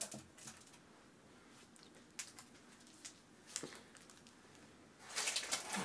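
Faint, scattered light clicks and taps of small items and packaging being handled, then a louder rustle about five seconds in.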